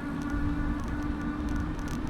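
Bicycle riding heard through a handlebar-mounted camera: road and wind rumble with a steady buzzing hum and small rattling ticks.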